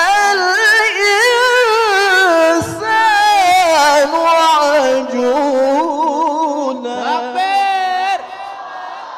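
A male qari reciting the Quran in ornamented tilawah style through a handheld microphone, his voice sweeping up and down in long melismatic runs. About eight seconds in the phrase ends and the sound dies away in the hall's echo.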